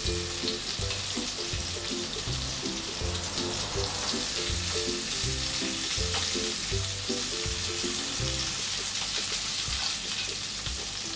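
Beef kabab skewers frying in hot mustard oil in a pan, with a steady sizzle. Background music with a repeating low bass line plays under it.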